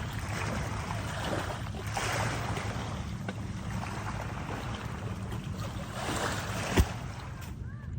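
Wind buffeting the microphone with a steady low rumble, and one sharp knock near the end.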